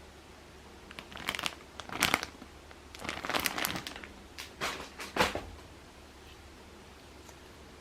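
Crinkly material being handled, crinkling and rustling in several short bursts for about four seconds before stopping.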